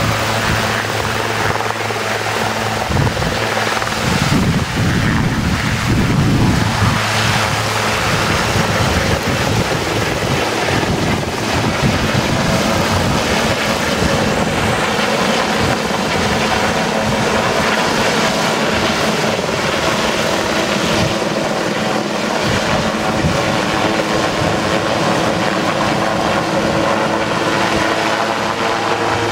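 Sikorsky S-76 air ambulance helicopter lifting off and climbing away: a loud, steady, rapid beat of the main rotor. The low rumble is strongest about four to seven seconds in.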